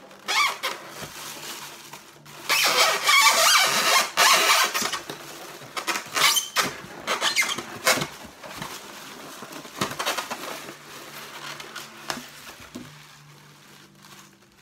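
Statue packaging being handled: plastic wrapping rustling and crackling with polystyrene foam squeaking. It comes in loud bursts from about two to five seconds in, then in shorter crackles and clicks that die away near the end.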